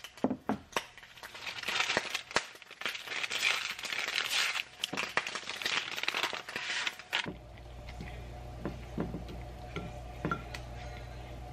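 A paper packet of instant oatmeal crinkling and crackling as it is handled and torn open. About seven seconds in, this gives way to a spoon stirring oatmeal in a bowl with light taps, over a low steady hum.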